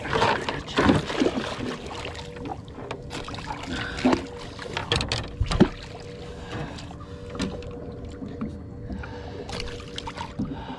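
Small boat on the water: irregular knocks and water sloshing against the hull, over a steady low hum.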